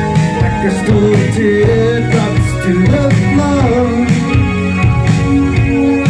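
Live new wave band playing: a sung lead vocal over electric guitar, keyboard synth and a steady drum beat. The singing carries the melody through the first few seconds, then the instruments carry on.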